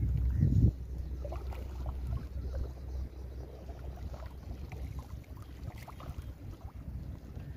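Lake water splashing and lapping while fish are worked out of a wet cast net, with small scattered splashes and rustles. A low wind rumble on the microphone drops away under a second in.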